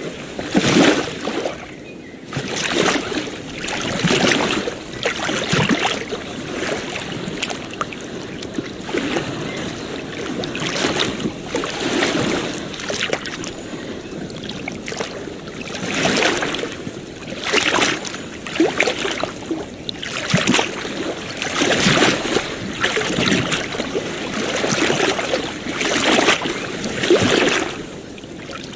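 Ocean waves breaking and washing on a shore, a new surge every few seconds.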